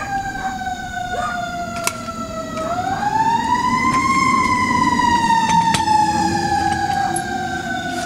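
Emergency vehicle siren on a slow wail, its pitch falling, rising about three seconds in, then falling again, with a few sharp clicks over it.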